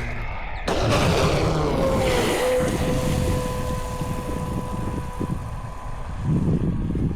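Pro Boat Blackjack 24 RC boat's brushless electric motor whining at a steady pitch, rising a little about two seconds in and fading out a few seconds later. Heavy wind noise on the microphone and a knock near the start.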